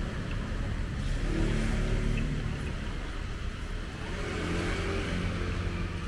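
Road traffic going past: a steady low rumble, with engine hum swelling about a second in and again after about four seconds as vehicles pass.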